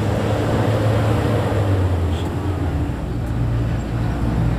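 Engine drone and road noise inside a moving vehicle on a winding road. The engine note shifts a little over halfway through.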